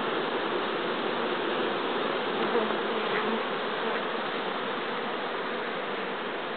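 Many honeybees humming steadily at the entrances of a row of wooden hives, a dense, even drone of heavy foraging traffic during a black locust (acacia) nectar flow.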